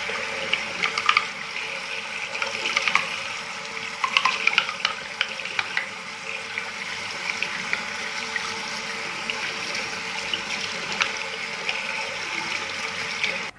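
Water running from a tap as a washing-machine part is rinsed clean under it, with splashing and scattered knocks of the part against the sink. The water cuts off suddenly near the end.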